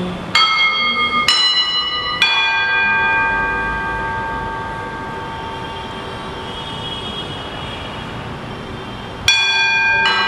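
Bells struck three times about a second apart, each stroke lower in pitch than the last, the third ringing on and slowly fading; the lowest is struck again near the end. These are the bells rung at the elevation during the consecration at Mass.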